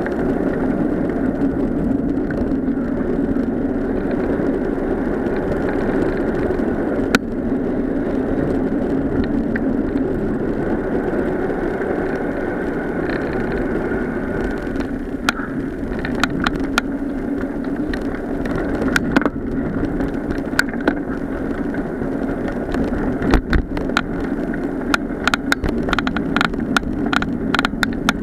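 Bicycle riding along a path: a steady hum of tyres and wind, with more and more clicks and rattles near the end as the tyres run onto gravel.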